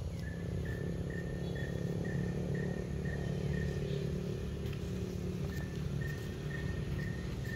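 Insect chirping in a steady, even rhythm, a single high note about two to three times a second, over a low steady rumble.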